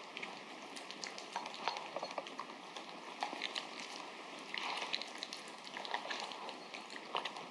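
Papillon eating soft wet food from a bowl: irregular small wet clicks and smacks of chewing and licking, with the odd tap against the bowl.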